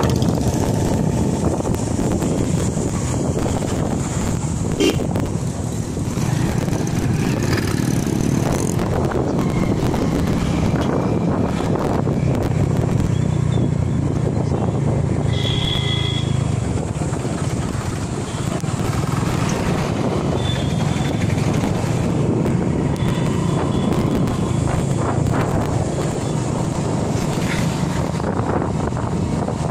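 Motorcycle engine running steadily as the bike is ridden along a road, with traffic around it. A short, high beep sounds about halfway through.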